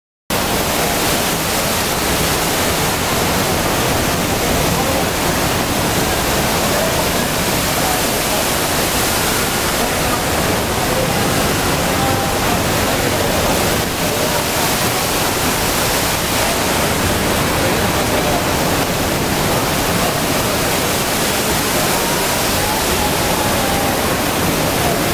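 Rain Oculus water vortex falling as a thick column from the skylight bowl into the pool below: a steady rush of falling and splashing water. Crowd chatter is faintly heard underneath.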